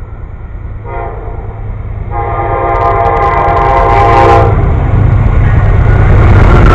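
An approaching train sounds its horn: a short blast about a second in, then a long blast, over a low rumble that grows steadily louder as the train nears.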